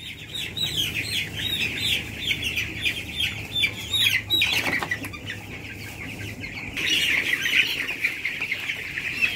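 A flock of 13-day-old broiler chicks peeping: a dense chorus of short, falling cheeps. One louder, longer cheep comes about four and a half seconds in, and the peeping grows busier about seven seconds in.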